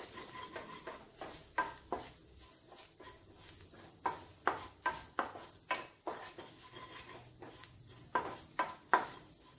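Wooden spatula stirring and scraping frying onions and spice masala in a nonstick wok, knocking against the pan in irregular taps about one or two a second.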